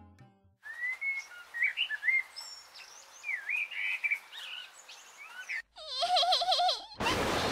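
Songbirds chirping and twittering over a faint steady hiss, a bird ambience sound effect. Plucked-string music ends in the first half-second. Near the end a wavering pitched sound comes in, followed by a sudden loud noisy sound.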